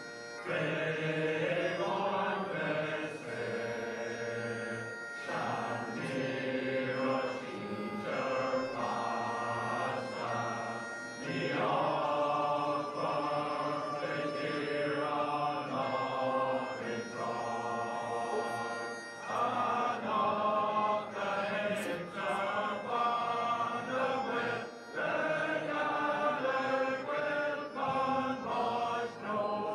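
Massed voices of the Ireland team and crowd singing an Irish anthem together in a slow, sustained, chant-like unison.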